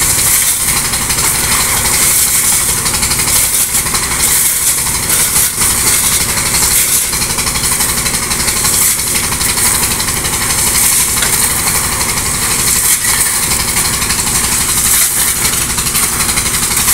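Engine of a gravel-dredging pump running steadily, with a constant rushing hiss of water and pebbles pouring from its discharge pipe into a dump truck bed.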